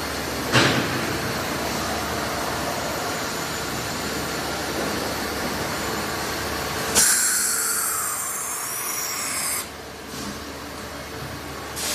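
Horizontal machining center running steadily while machining a connecting rod, with a sharp click about half a second in. At about seven seconds a loud hiss with a shifting whine starts suddenly and cuts off about two and a half seconds later.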